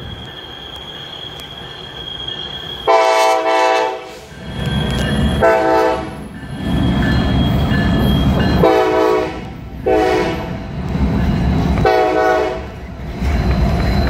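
Norfolk Southern diesel locomotive sounding its air horn in five blasts of about a second or less, over the low rumble of the passing train. Before the first blast a steady high squeal is heard, typical of wheel flanges squealing on a tight curve.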